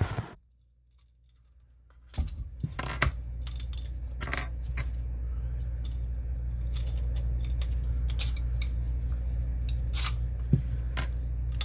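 Small parts of a sink pop-up drain assembly clicking and clinking as they are handled and fitted, scattered knocks over a steady low hum. The sound starts after a second and a half of dead silence at the start.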